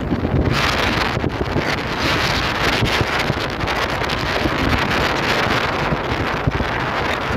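Wind rushing over the microphone of a phone held at the window of a moving car, with the car's road noise underneath; the hiss swells and eases but never stops.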